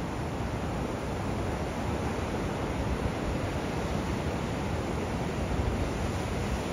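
Surf washing onto a sandy beach, a steady, even wash of noise, with wind rumbling on the microphone.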